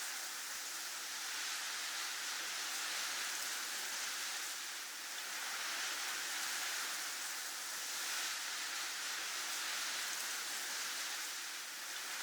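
Snowstorm wind blowing as a steady, high hiss that eases slightly twice before swelling back.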